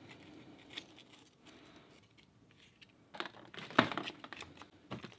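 Flat metal scraper scraping caked-on old grease off a cast gear from an antique post drill, with a cluster of short, sharp scrapes about three seconds in and one more near the end. Plastic crinkles under the strokes.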